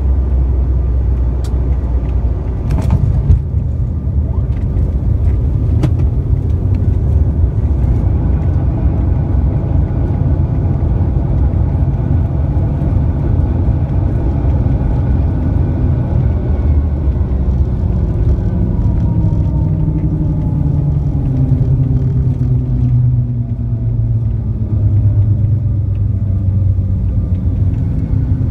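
Jet airliner cabin noise while rolling on the ground after landing: a loud, steady low rumble of the engines and wheels, with the engines' whine gradually falling in pitch in the second half as they wind down. A sharp knock sounds about three seconds in.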